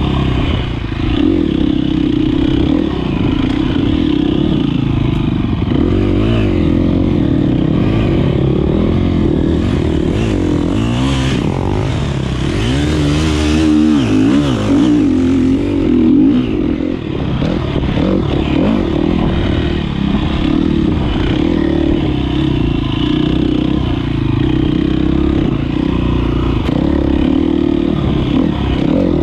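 2013 KTM 250 XC-F's 250 cc four-stroke single-cylinder engine running hard under load, its revs rising and falling continually.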